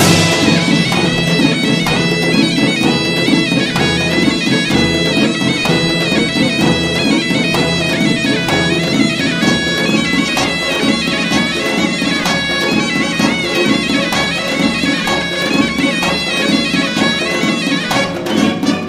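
Folk music: a loud reed pipe plays an ornamented melody over a steady held drone, with a regular drum beat underneath.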